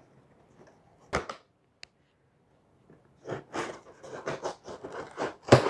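Kitchen knife slitting the tape seal on a cardboard takeaway box: one sharp scrape about a second in, then a run of quick rasping cuts from about three seconds on.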